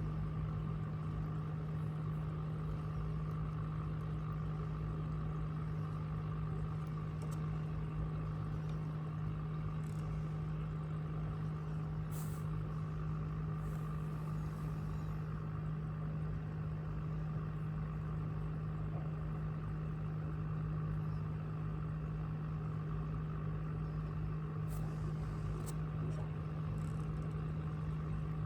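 A motor running at a steady speed, giving an even, unchanging low hum.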